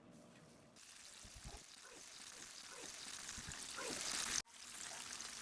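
Breaded chicken pieces sizzling in hot frying oil: a steady hiss that grows louder, with scattered pops and crackles. It breaks off abruptly about four and a half seconds in and then resumes.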